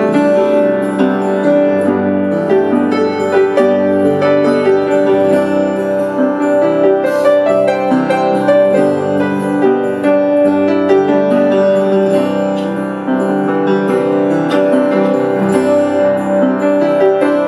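Piano and acoustic guitar playing an instrumental passage of a song, without vocals.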